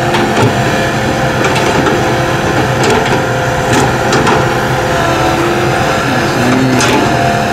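Tracked excavator working: its diesel engine runs steadily under load with wavering hydraulic tones, and a few short knocks and clanks come through as it smooths the dirt road.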